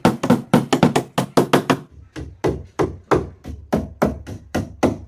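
A rapid, uneven series of sharp knocks, about four or five a second, with a brief pause about two seconds in.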